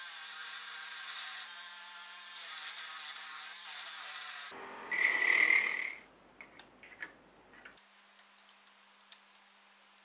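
Rotary tool with a small sanding drum grinding the inside of a brass lighter case: a high hissing grind in three bursts with short gaps. About four and a half seconds in, a shorter, lower scraping sound follows. After about six seconds only faint light clicks remain as the metal case is handled.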